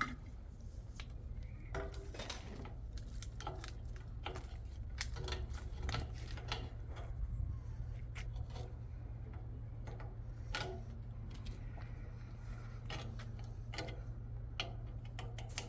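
Scattered light clinks and knocks of hard objects being handled, irregular and unevenly spaced, over a steady low hum.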